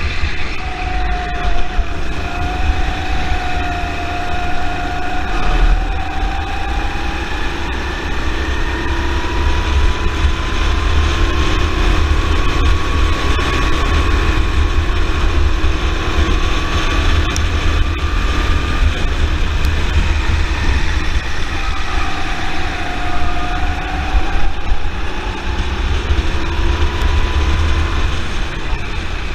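Rental kart's Honda engine running on track, its pitch climbing slowly through the middle and dropping back a few seconds before the end, then rising again. Heavy wind rumble on the microphone lies under it.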